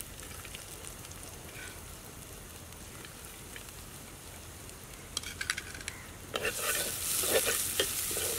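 Chopped garlic and green chillies frying in ghee in a clay pot: a faint sizzle at first, then, about six seconds in, a much louder sizzle with the clatter of a spatula stirring and scraping.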